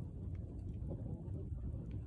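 Campfire burning: a steady low rumble with a few faint, scattered crackles.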